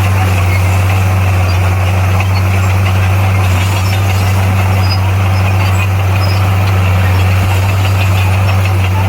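Bulldozer's diesel engine running steadily at an even, unchanging low pitch.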